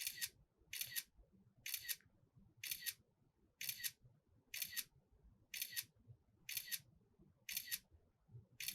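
Camera shutter firing ten times, about once a second, each a quick double click: ten frames being shot for a stop-motion hold.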